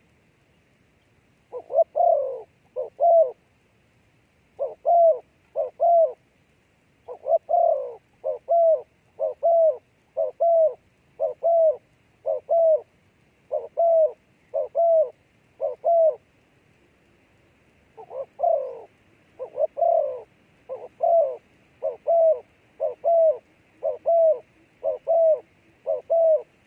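Dove cooing: short, low coos repeated at an even pace, many in pairs, in two long runs with a pause of about two seconds between them.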